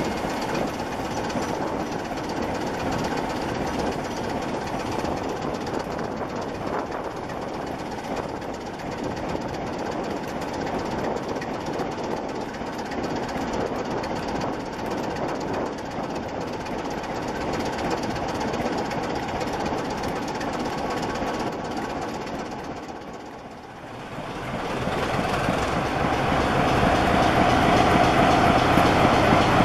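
Passenger coaches rolling steadily past on the rails, fading away after about twenty-three seconds. After a cut, the six-cylinder Sulzer diesel engine of a Class 26 locomotive running steadily, louder.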